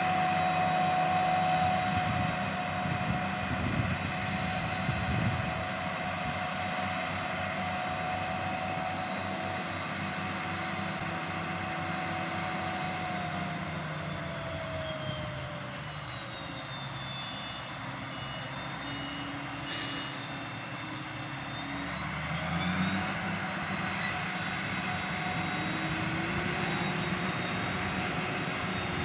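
Forage harvester's engine and chopper running steadily, heard from inside the cab. The engine note sinks about halfway through and climbs again a few seconds before the end, with a brief hiss in between.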